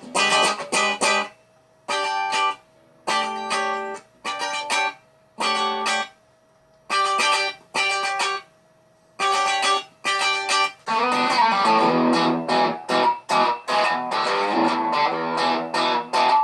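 Electric guitar, a Telecaster built from a DIY kit, played through an amp. It plays short strummed chords, each cut off before a brief gap, and switches to continuous strumming about two-thirds of the way in.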